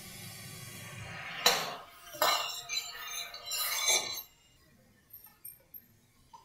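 Vegetable broth poured into a hot stainless steel pan of simmering vegetables, followed by a metal spoon clinking and scraping against the pan three times; the sound stops about four seconds in.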